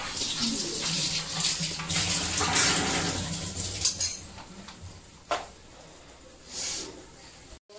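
Kitchen tap running, water splashing with pots and pans clinking. The running water stops about four seconds in, leaving a quieter stretch with a sharp knock and a short splash near the end.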